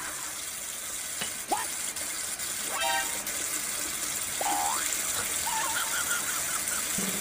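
Kitchen tap running steadily, its stream pouring onto leafy greens in a plastic colander in a sink. A few brief high-pitched chirps sound over the water.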